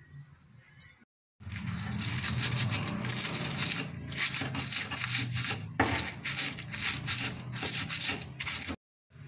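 Stone pestle (ulekan) grinding chilies, garlic and salt in a stone mortar (cobek): gritty scraping and crushing in quick repeated strokes, about two to three a second. It starts about a second in and stops abruptly just before the end.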